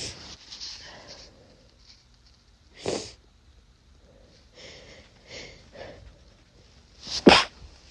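A person with a cold stifling sneezes: a muffled sneeze about three seconds in and a louder, sharper double burst near the end, with small sniffs and breaths between.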